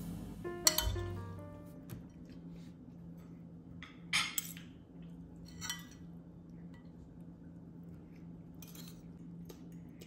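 Cutlery and dishes clinking a few times, with sharp separate knocks; the loudest comes about four seconds in.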